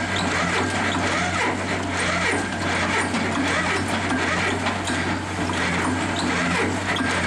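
Diesel engines of a tracked auger drilling rig and a telehandler running steadily, a constant low hum, with a dense rattle and clatter of machinery as earth is shed from the raised auger into the telehandler's bucket.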